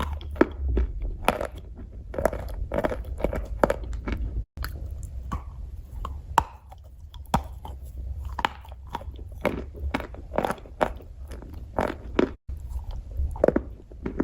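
Chalk being bitten and chewed close to the microphone: irregular crisp crunches, about two or three a second, over a steady low rumble. The sound cuts out briefly twice.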